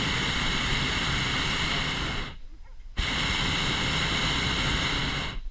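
Hot air balloon's propane burner firing: a loud, steady rushing blast with a high whistling tone in it. It cuts off a little over two seconds in, fires again less than a second later, and cuts off just before the end.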